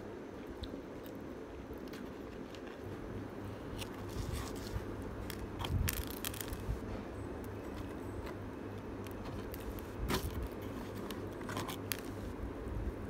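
Close-miked eating and handling noises: mouth chewing sounds, then scattered sharp crackles and rustles as a pizza slice is handled and lifted from its cardboard box. The loudest clicks come about six and ten seconds in, over a steady low hum.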